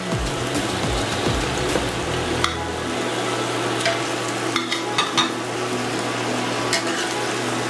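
Pepper-and-onion stew with chicken pieces sizzling steadily in a frying pan while a metal spoon stirs it, with several sharp clicks of metal utensils against the pan.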